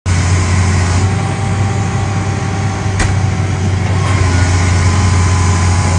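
20-ton excavator's diesel engine running steadily with a deep, even hum, and a single sharp knock about halfway through.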